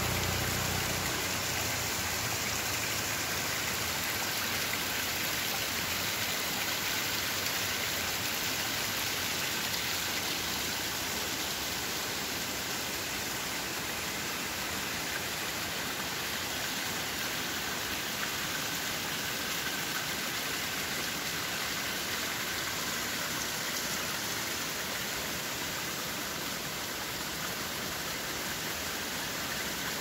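Small waterfall trickling and splashing down a rock face into a rocky streambed: a steady rush of water.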